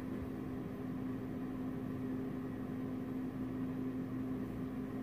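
Steady background hum with one constant low tone and a faint hiss, unchanging throughout.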